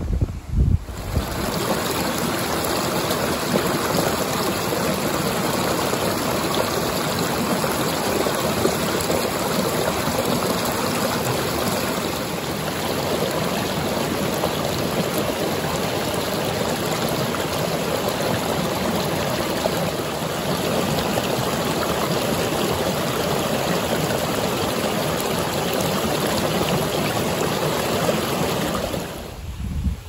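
Shallow stream running over rocks and stones: a steady rush of flowing water.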